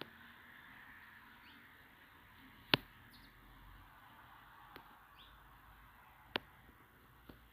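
Faint outdoor ambience with a few short bird chirps and two sharp knocks, one about three seconds in and one near the end.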